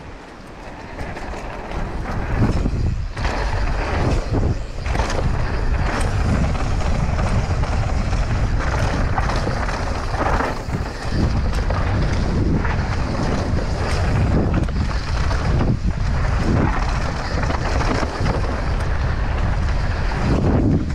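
Wind buffeting an action camera's microphone on a mountain bike riding down a dirt trail, with tyres rolling on dirt and frequent rattles and knocks from the bike over bumps. The rush builds over the first couple of seconds, then stays steady.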